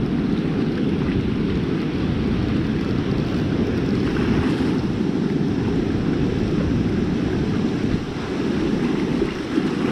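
Ocean surf washing in over the sand, with a steady low rumble of wind on the microphone.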